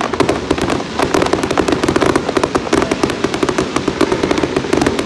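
Aerial fireworks display: a continuous, dense barrage of sharp bangs and crackling, many reports a second with no let-up.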